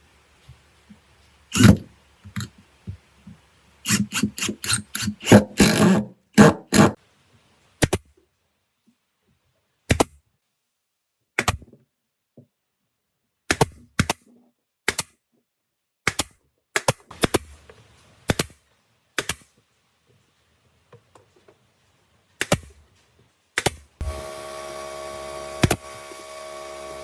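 Irregular knocks, clicks and thunks of hand tools and wood being handled at a workbench, a cluster of quick knocks about four to seven seconds in and single sharp clicks after. Background music comes in near the end.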